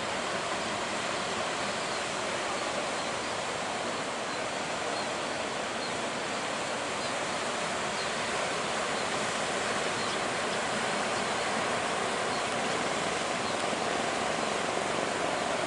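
Steady rushing of big surf breaking at a river mouth, growing slightly louder in the second half.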